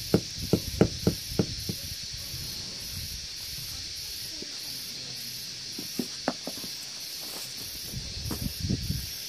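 Mallet tapping a concrete step paver down into its mortar bed: a run of dull knocks, about three a second, fading out over the first two seconds. After that a steady hiss, with a few light knocks and handling sounds near the end.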